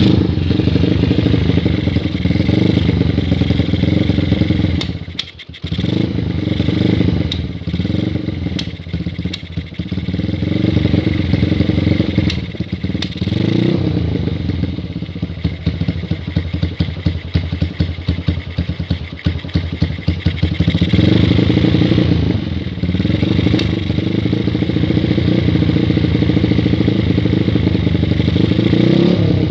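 Honda GL motorcycle's single-cylinder four-stroke engine running just after starting, its speed rising and falling in repeated blips, with a sharp drop in level about five seconds in, then held steadier and faster near the end. The bike has a fault that makes it cough at idle.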